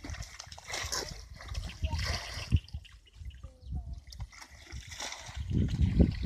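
Water splashing and sloshing as a plastic bucket is dipped and scooped through a shallow muddy ditch. It comes in irregular bursts, quieter in the middle and louder near the end.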